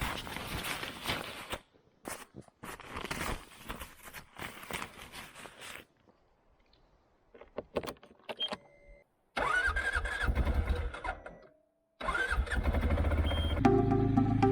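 CFMoto 520 ATV's single-cylinder engine being started, a rising whine as it catches, then running steadily, after several short spells of rustling and knocking. Background music comes in over the engine near the end.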